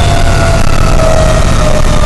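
Fire engine's siren, its pitch sliding slowly downward, over the steady rumble of the truck's engine, heard from inside the cab.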